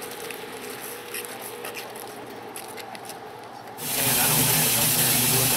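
Light scattered clicks over quiet outdoor background. About four seconds in, a sudden loud, steady hiss of steam starts from the Leviathan, a replica Central Pacific 4-4-0 steam locomotive, with a low steady hum beneath it.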